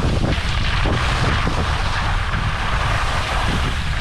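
Wind buffeting the microphone during a downhill ski run, a loud steady rumble, over the even hiss of skis sliding on snow, with a few faint knocks.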